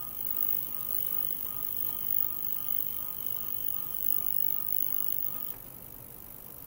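Portable 40 kHz, 100 W ultrasonic cleaner transducer running in a glass of water: a steady high hiss with a faint high whine and a soft pulsing tone, which weakens about five and a half seconds in.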